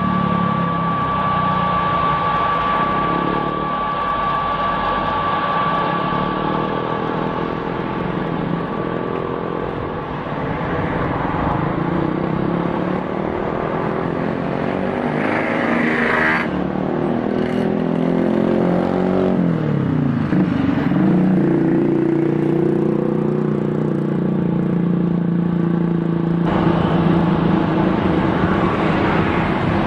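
Boeing 737-800's CFM56-7B turbofan engines at taxi power: a steady whine over a rumble. The engine tones dip and rise again about two-thirds of the way through.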